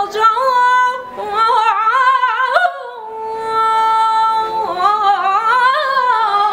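A woman singing flamenco unaccompanied, her voice wavering through ornamented lines and holding one long steady note about halfway through.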